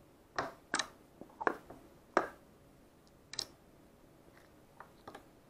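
Pre-made slime pressed and squeezed by hand, giving a series of short, sharp wet pops and squelches: about half a dozen loud ones in the first two and a half seconds, then a few fainter ones.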